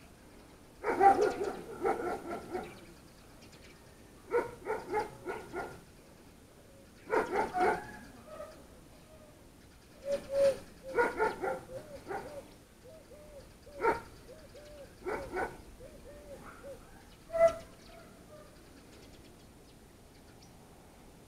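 A dog barking in short bouts of several barks each, a bout every few seconds, with quiet between them.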